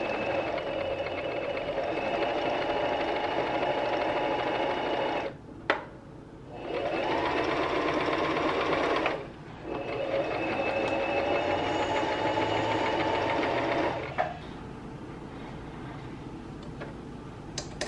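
Singer M1500 electric sewing machine stitching in three runs, its motor speeding up with a rising whir at each restart as the foot pedal is pressed. Short pauses separate the runs, with a click in the first pause. The machine stops for good about 14 seconds in with a click. During the middle run the reverse-stitch lever is held down to backstitch.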